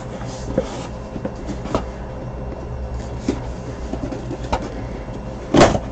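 Handling noise from a small cardboard shipping box being opened: scattered small clicks, taps and rustles, with one louder, brief rip or rustle near the end, over a steady low hum.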